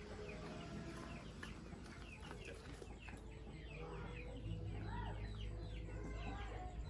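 A flock of chickens clucking and calling, with many short high calls overlapping quickly. A low steady hum comes in about halfway through.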